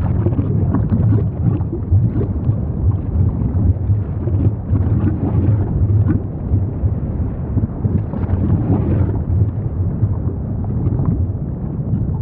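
Volcanic eruption sound effect: a loud, continuous deep rumble with irregular crackling and popping over it.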